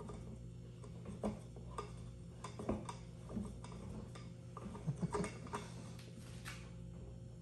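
Hudson float valve being screwed by hand onto a plastic bulkhead fitting in a drum lid: quiet, irregular clicks and light knocks of plastic on plastic, with a cluster of sharper clicks about five seconds in.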